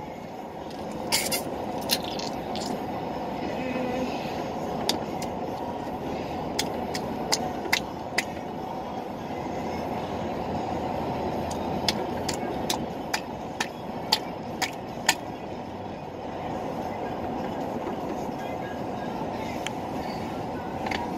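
Steady rumble of a moving vehicle, with scattered sharp clicks at irregular intervals.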